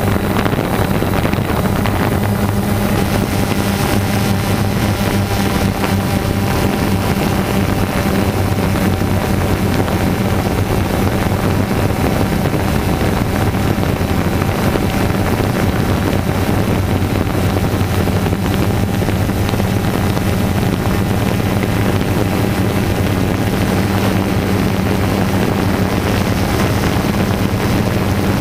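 Multirotor drone's motors and propellers running steadily in flight: a constant low buzzing hum heard from the drone's own camera, with some wind noise on the microphone.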